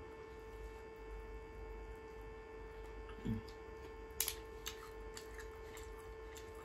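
Steady low electrical hum, with a few faint sharp clicks of crab shell being picked apart by hand a little past the middle, and one short low vocal sound about three seconds in.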